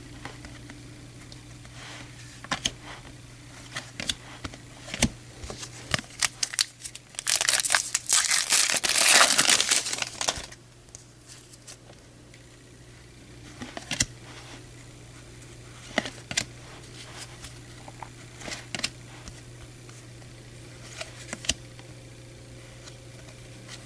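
A baseball card pack's wrapper being ripped open and crinkled, a loud stretch of about three seconds near the middle, with scattered light clicks and taps of cards being handled before and after, over a faint steady hum.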